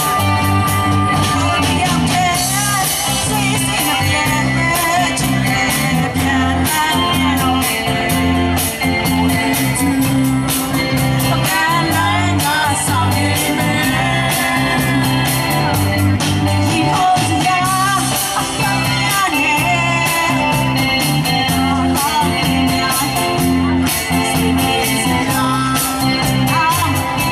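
Live rock band playing: a woman singing into a microphone over electric guitars, bass and a drum kit with a steady beat.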